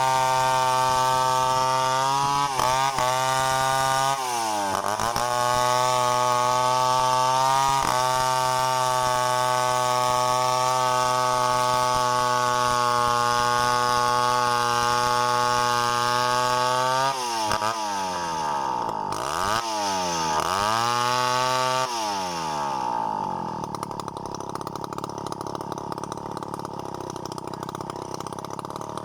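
Two-stroke chainsaw running at high revs while cutting a coconut palm, the engine note dipping briefly a few times. Late on, the throttle is blipped down and up several times and the saw drops back to idle.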